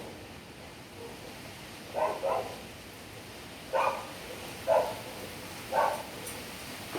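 A dog barking about five times at uneven intervals, the first two barks in quick succession, over a steady rush of wind noise.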